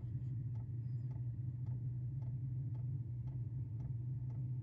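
Chinese diesel parking heater starting up: its fuel dosing pump clicks steadily about twice a second over the steady hum of its blower fan, pulsing fuel to the burner during the ignition cycle.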